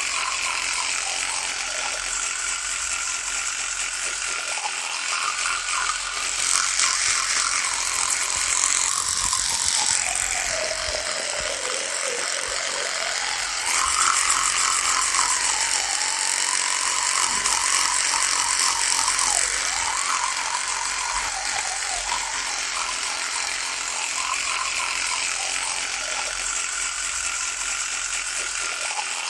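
Electric toothbrush buzzing continuously. Its pitch sinks lower about ten seconds in, jumps back up a few seconds later and wavers after that.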